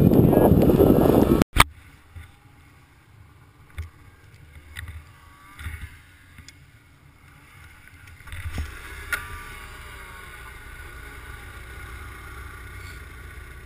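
A loud rushing noise cuts off abruptly. Then a snowmobile engine hums low and steady from the rider's seat, with a few short knocks and a higher engine whine joining about eight seconds in.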